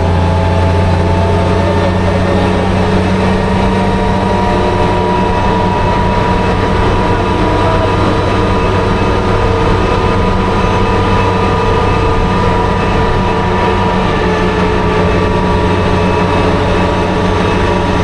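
Daimler Ferret scout car's Rolls-Royce B60 straight-six petrol engine running steadily under way at an even road speed, a loud low hum with steady higher tones above it that hold without change.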